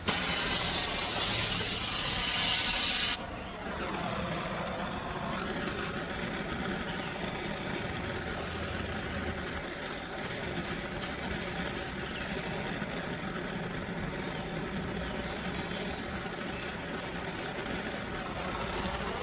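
A loud hiss that cuts off suddenly about three seconds in, followed by a quieter, steady machine-like hum that runs on.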